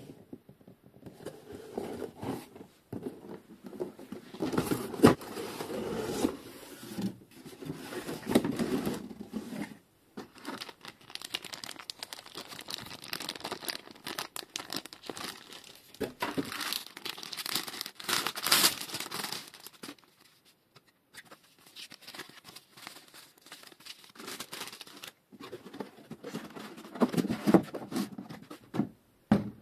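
Unboxing handling noise: a clear plastic parts bag crinkling and paper instruction leaflets rustling, in irregular spells with brief pauses. Near the end there is a louder spell of cardboard box and moulded pulp packing being handled as the fork is taken up.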